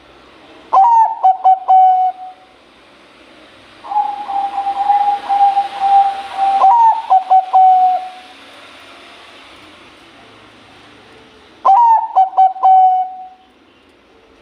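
Zebra dove (Bangkok-type perkutut) singing: three cooing phrases of quick, clipped notes at a steady pitch, the middle phrase opening with a long drawn-out note.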